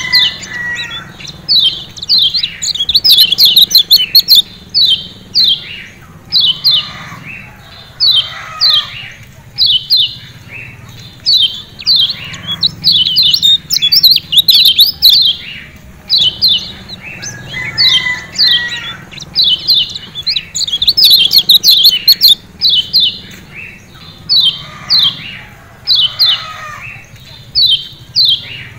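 Kecial kuning, the Lombok white-eye, giving rapid 'ciak ciak' calls: short, sharp, high notes that each slide downward, in bursts of a few to a dozen with brief gaps between them.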